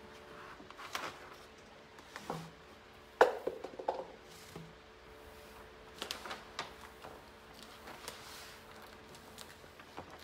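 Scattered handling sounds of a plastic decor transfer sheet being peeled and pressed onto a mirror: light rustles and knocks, with one sharp click about three seconds in, over a faint steady hum.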